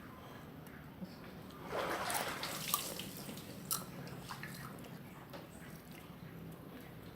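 Faint handling noises: a brief hiss about two seconds in, then a few light clicks.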